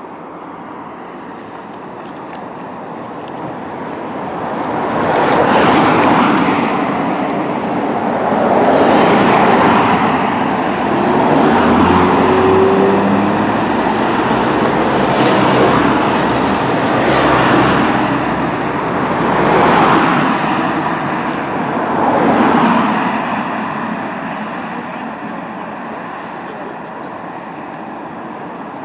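Cars passing one after another on an asphalt road close by, their tyre and engine noise swelling and fading about seven times in a row before easing off to a lower traffic hiss.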